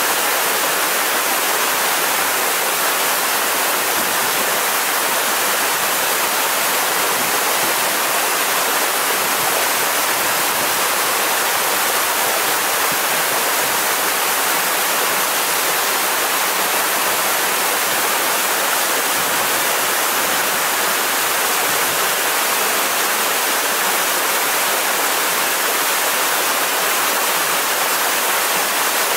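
Waterfall rushing steadily at close range.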